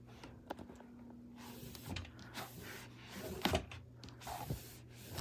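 Fabric drawers of a small nightstand being pulled out and pushed back in, with a few scattered knocks and rubbing sounds; the loudest knock comes about three and a half seconds in.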